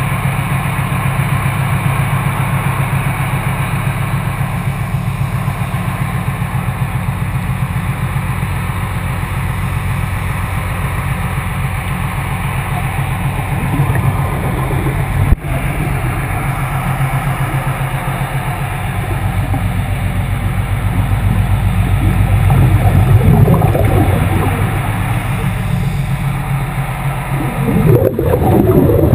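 A ship's engine and propeller machinery heard underwater near the stern: a steady, rapidly pulsing low hum, muffled by the water. A single sharp knock comes about halfway through, and water bubbles and churns near the end.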